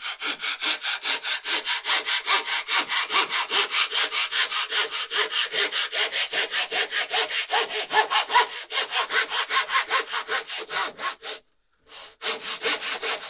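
Hand saw cutting the scarf end of a plywood boat plank in quick, even back-and-forth strokes, about five a second. The strokes stop briefly about eleven seconds in, then start again.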